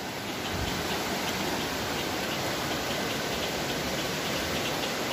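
Steady rushing of a river in flood, its swollen muddy current running high and fast over rocks after days of torrential rain.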